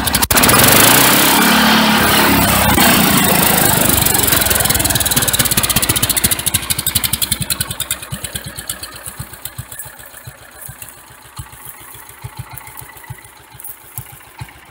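Cub Cadet 122 garden tractor's small engine, fitted with a reworked intake valve, revved up to high speed just after the start and held there, then throttled back over a few seconds to a slow idle where its separate firing pulses can be heard.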